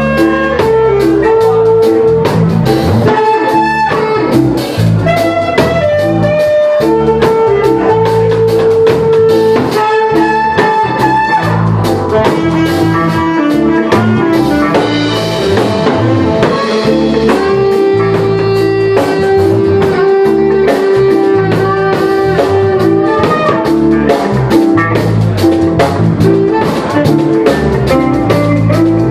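A jazz fusion band playing loud and live, a drum kit keeping a steady beat under a melody of long held notes.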